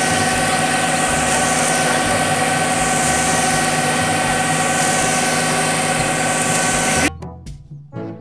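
Concrete mixer truck's diesel engine running steadily with a constant whine while the drum discharges concrete down the chute. The sound cuts off suddenly near the end.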